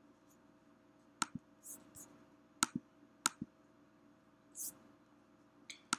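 Faint clicks of a computer mouse and keyboard: three quick pairs of sharp clicks in the first half, with a few softer brushing sounds between and near the end.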